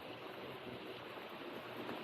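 Steady rain falling, an even hiss with a faint low hum of distant traffic beneath it.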